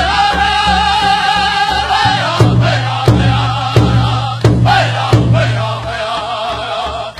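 Tribal-style chanting music: a long held sung note, then a steady drum beat about every 0.7 s with short falling vocal swoops on each beat.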